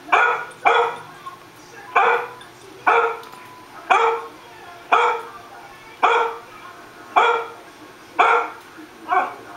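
A dog barking in a steady series of short, alike barks, about one a second, from the dog video playing on the computer.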